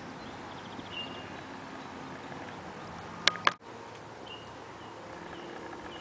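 Outdoor park ambience: faint steady background noise with a few short, high bird chirps, and a single brief sharp sound about three seconds in, just before the sound cuts out for an instant.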